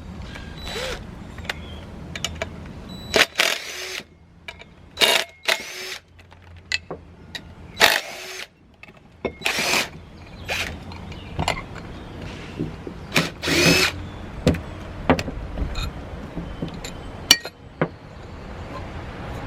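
Cordless drill or driver spinning out the back-cap bolts on the number 5 bell of a Nathan K5LA locomotive air horn, run in a series of short bursts with metal clicks and clinks between them.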